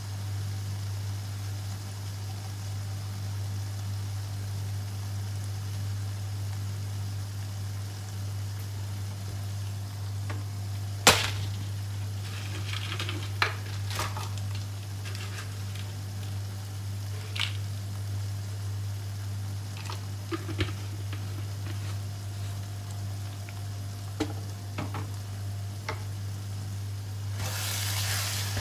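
Sambal chili paste cooking in a wok over a gas flame, spitting with scattered sharp pops, the loudest about eleven seconds in, over a steady low hum. Near the end a wooden spatula starts stirring the paste, making a louder scraping sizzle.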